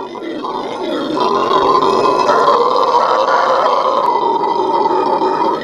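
Venezuelan red howler monkeys giving their morning howl: a loud, continuous, droning chorus that swells over the first second and then holds, wavering slowly in pitch.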